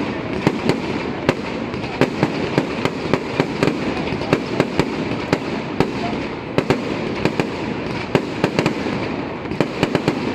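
Fireworks going off in a steady crackle, broken by sharp bangs several times a second.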